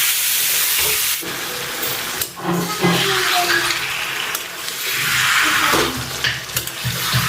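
Chicken sizzling as it fries in a pan, being stirred, with the hiss breaking off and returning a few times. Music with a low beat comes in near the end.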